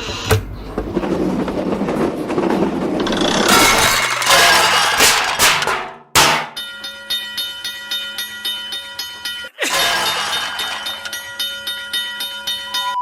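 Railway sound effects: a train rumbling past, swelling to a rushing whoosh about five seconds in. Then a railroad-crossing warning bell rings fast and evenly, broken by a short gap about nine and a half seconds in.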